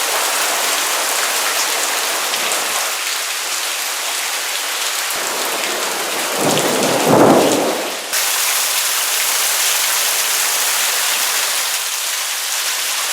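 Heavy rain pouring down in a steady hiss. A rumble of thunder swells up about six seconds in, is loudest around seven seconds, and fades. Near the eight-second mark the rain sound changes abruptly.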